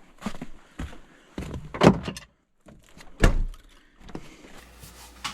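A series of sharp knocks and thuds, the two loudest about two and about three and a quarter seconds in, followed by a low steady hum.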